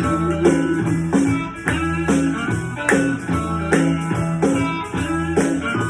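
Blues band playing an instrumental stretch with a repeating guitar riff over bass and drums.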